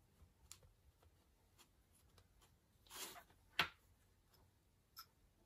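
Hands handling a Bergeon watch-repair micrometer, metal parts rubbing and clicking: faint scattered ticks, a brief rub about three seconds in followed at once by a sharp click, the loudest sound, and a lighter tick near the end.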